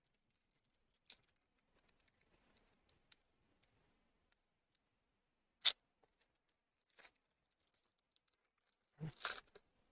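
Mostly quiet with a few faint clicks and taps and one sharp tap about halfway through, then a short burst of crinkling and tearing near the end as a foil trading-card pack wrapper is ripped open.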